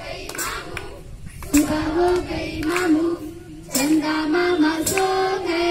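A group of schoolgirls singing a song in unison, the tune stepping up and down, starting in earnest about one and a half seconds in. A few sharp hand claps cut through the singing.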